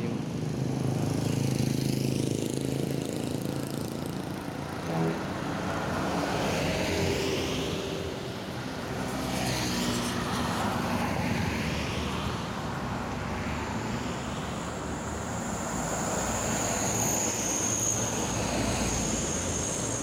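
Road traffic passing along a highway: cars and motorcycles go by in a steady rumble and hiss that swells and fades with each passing vehicle. In the second half a thin, steady, high-pitched whine joins in.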